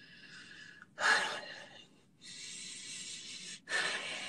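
A person breathing heavily into a phone microphone: three or four long, hissy breaths or huffs, each lasting about a second.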